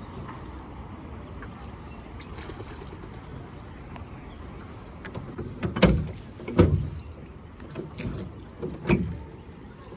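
Rowboat being rowed by hand: oars knocking in their oarlocks. The first half is quiet, then about halfway through come four loud, short knocks a second or so apart.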